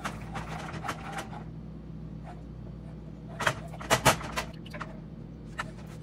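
Wooden spoon stirring chicken broth into a butter roux in a metal skillet, with light scraping and a cluster of sharp knocks about three and a half to four seconds in.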